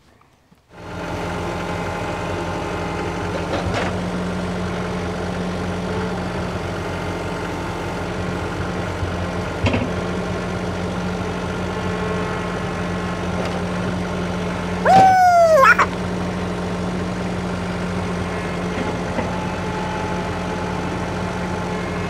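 Portable band sawmill's engine idling steadily with a constant low hum. About fifteen seconds in, a short, louder whine falls in pitch.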